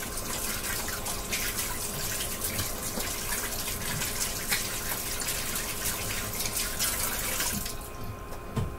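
Kitchen tap running into a sink as hands are rinsed under the stream, a steady splashing hiss that shuts off near the end.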